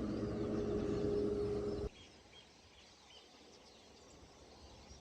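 Steady outdoor background noise with a faint steady hum, which cuts off abruptly about two seconds in. Then it is very quiet, with a few faint bird chirps.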